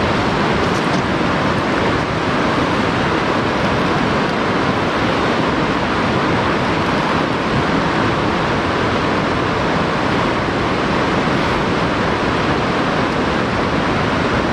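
Steady rushing of river water, an even hiss with no breaks.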